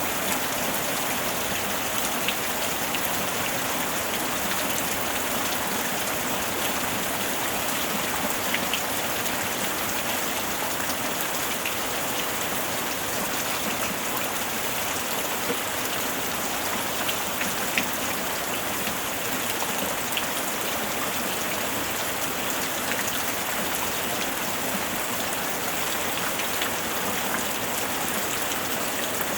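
Steady rain falling, with a dense hiss and scattered individual drops ticking on a surface.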